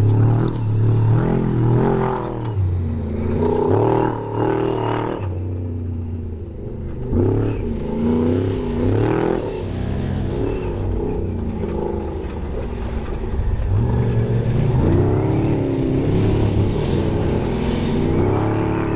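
Trophy Truck off-road racing engine revving hard, its pitch climbing and dropping again and again with throttle changes and gear shifts.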